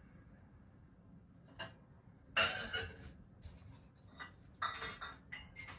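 Dishes and cutlery clinking and clattering as they are handled, a handful of short sharp knocks, the loudest about two and a half seconds in.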